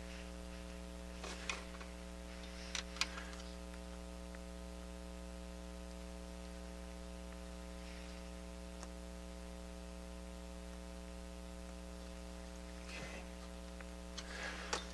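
Steady electrical mains hum. A few faint clicks and taps can be heard, about a second and a half in, around three seconds in, and again near the end.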